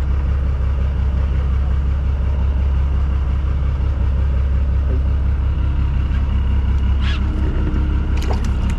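Boat engine running steadily at idle, a constant low hum. A few short sharp clicks come near the end.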